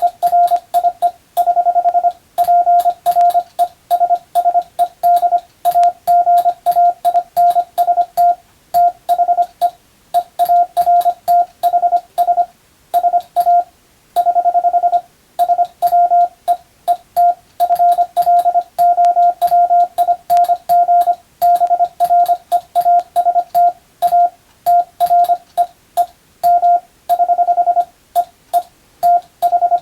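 Morse code (CW) for receiving practice: a single steady beep keyed on and off in dots and dashes at a brisk sending speed, with a faint click at the edges of the marks.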